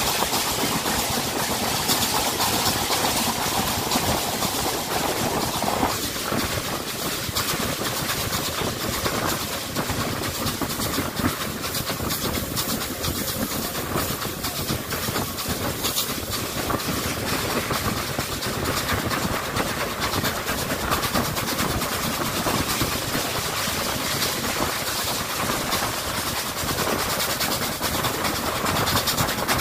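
A steam-hauled passenger train running at speed, heard from outside a carriage window: carriage wheels on the rails and wind rushing past, with steam from the locomotive ahead. The sound stays steady throughout.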